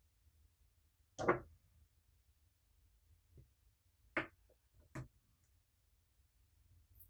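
A few separate short clicks and taps in near quiet: a louder, slightly longer one about a second in, a faint tick, then two sharp clicks about four and five seconds in.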